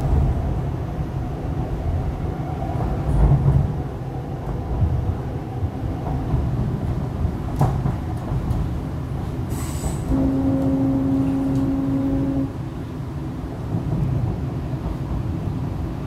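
MTR East Rail Line R-Train, a Hyundai Rotem electric multiple unit, running on the line, heard from inside the car by the doors as a steady low rumble. There is a sharp click a little under eight seconds in, and a steady tone starts about ten seconds in and holds for about two and a half seconds.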